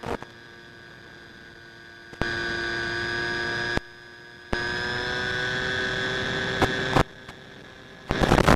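Whine of a Bixler 2's AXI 2212 electric motor and propeller heard from the plane's onboard camera in flight: a steady hum of several pitches that grows louder about two seconds in, drops back, then swells again with a slight rise in pitch as the throttle is opened, and rises once more near the end.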